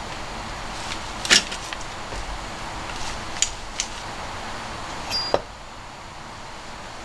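A few light clicks and knocks of kitchen utensils against a plastic cutting board, the sharpest about a second in and a last one a little past five seconds, over a steady background hiss.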